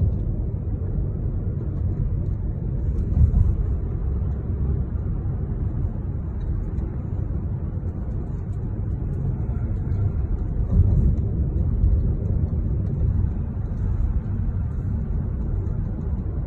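Steady low rumble of a bus in motion, engine and road noise heard from inside the cabin, swelling briefly about three seconds in and again around eleven seconds.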